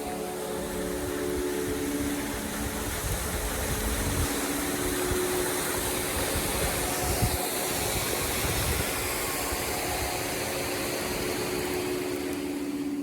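Steady rush of a mountain stream's flowing water, with a soft sustained music drone beneath it.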